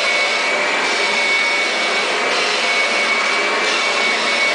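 Kirby vacuum cleaner running steadily: a loud, even rush of air with a constant high whine.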